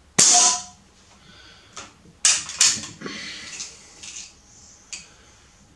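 A regulated Artemis PR900W PCP air rifle firing one shot, a sharp crack just after the start with a brief ring. It is followed by a few metal clicks and handling noise as the bolt is worked by hand.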